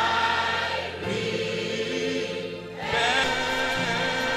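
Slow gospel worship song: long, wavering sung notes over steady low backing notes, with a choir-like sound.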